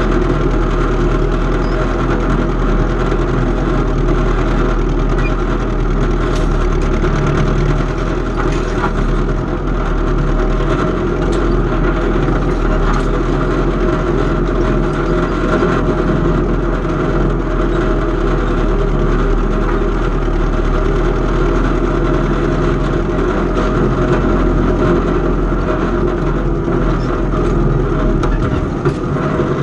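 Antique farm tractor's engine running steadily.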